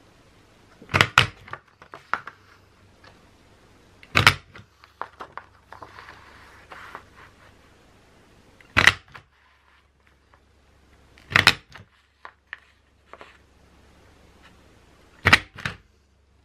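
A lace-pattern craft border punch pressed down through paper five times, each press a sharp snap, every few seconds, cutting a decorative edge along the sheet. Faint paper sounds and small clicks between the snaps as the sheet is slid along to the next position.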